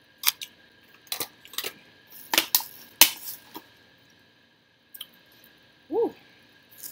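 Close-up eating sounds while chewing a mouthful of flan: a string of sharp wet lip and tongue smacks and clicks over the first few seconds, then a short hummed 'mm' near the end.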